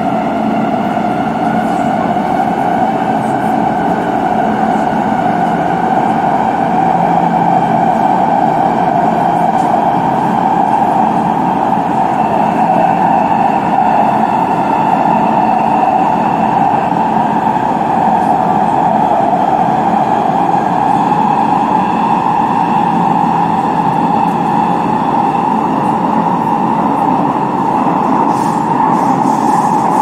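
Metro train running, heard from inside the carriage: a steady, continuous running noise with a whine whose tones drift slowly up and down in pitch.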